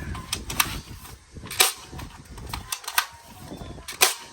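Toy gun firing: about five sharp cracks at uneven intervals, over a low rumble.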